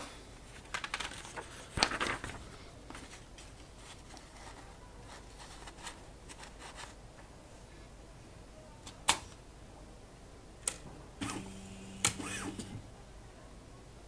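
Opened-up IBM Wheelwriter electronic typewriter mechanism giving a few sharp mechanical clicks, with a brief steady whirr of its carriage motor moving the carriage about eleven seconds in. Soft rustling and light clicks of paper handling come in the first couple of seconds.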